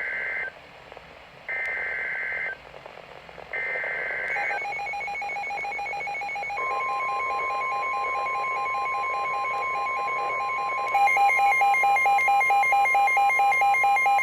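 Emergency Alert System SAME header: three one-second bursts of warbling data tones a second apart. Then the alert tones begin: a pulsing two-pitched electronic tone, joined about two seconds later by a steady single tone. The pulsing tone grows louder about eleven seconds in.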